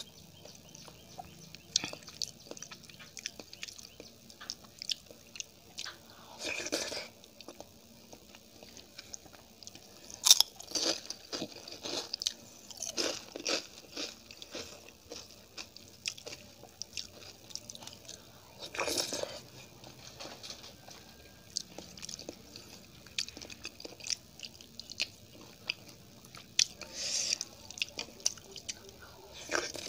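Close-miked eating: irregular crunching bites and chewing of crisp fried food, with sharp mouth clicks between them. There are louder crunchy bursts about a third of the way in, around the middle and near the end.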